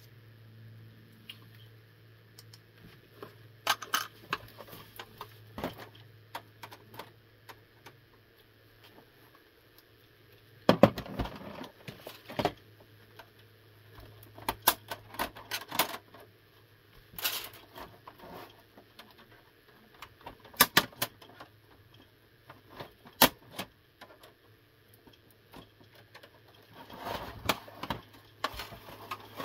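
Scattered plastic and metal clicks, knocks and rattles from an Xbox 360 S (Trinity) console's casing and chassis being handled and fitted, with the densest clatter about eleven seconds in. A steady low hum sits underneath.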